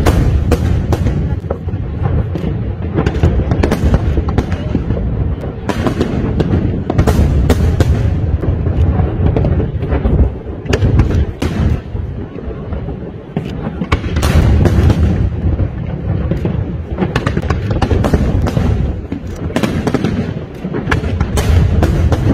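Aerial fireworks going off in quick succession: many sharp cracks over a continuous low rumble. The bursts thin out briefly around the middle and come thick again soon after.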